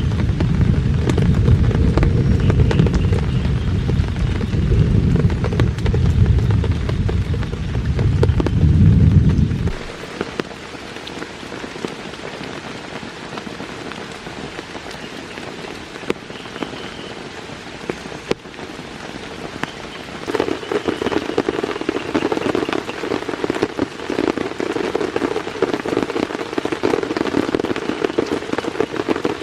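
Steady rain with many small drop ticks pattering on a surface. A heavy low rumble under the rain for the first ten seconds stops suddenly, and a lighter low drumming returns about twenty seconds in.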